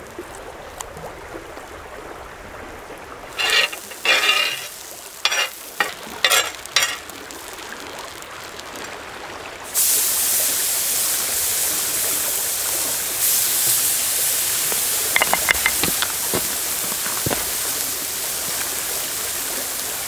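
Butter-coated smallmouth bass fillets start sizzling suddenly on a hot cast iron griddle about halfway through, and the sizzle then holds steady, with a few light clicks near the end. Before that come a few short bursts of noise over a quiet background.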